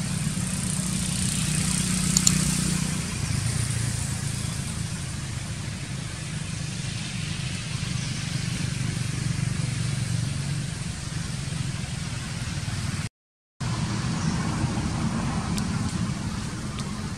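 A motor vehicle engine running steadily, heard as a low hum. The sound cuts out completely for a moment about thirteen seconds in.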